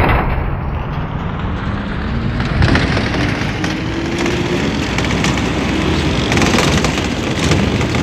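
A motor vehicle driving along a road: steady engine and road noise, with an engine tone rising in pitch between about two and four seconds in.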